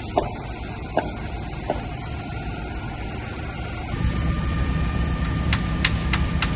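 Forklift engine running, getting louder about four seconds in, with a few single knocks early and a quick run of sharp clicks near the end.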